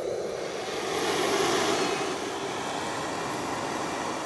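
Handheld butane gas torch burning with a steady rushing hiss, its flame held to kindling to light a wood fire.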